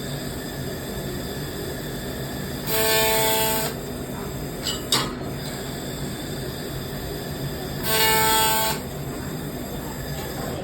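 LightWeld handheld laser welder firing two tack welds, each a burst of about a second with a steady buzzing tone and hiss, about three seconds in and again about eight seconds in. A couple of sharp clicks come between them, over steady hall noise.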